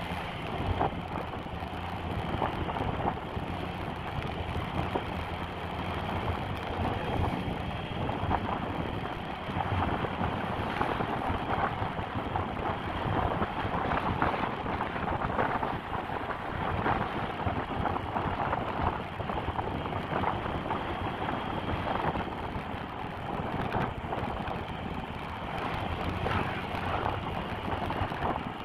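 Motorcycle on the move, its engine running steadily under heavy wind noise on the microphone.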